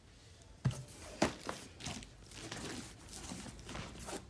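Cardboard shipping box being handled and its flaps opened by hand: a few sharp knocks about a second in, then light rustling of cardboard and plastic wrap.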